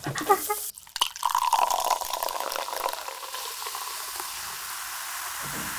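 Carbonated lemon-lime soda poured from a can into a wine glass: a splashing pour, then a steady fizzing hiss as the foam rises in the glass.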